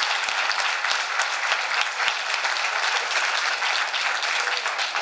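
Audience applauding: many hands clapping in a steady, dense round of applause.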